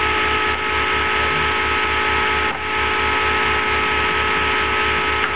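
Home-built Orbo-style magnet motor with an eight-magnet rotor running steadily: a constant hum with a couple of high, even tones and a hiss, over a low pulsing of about five beats a second.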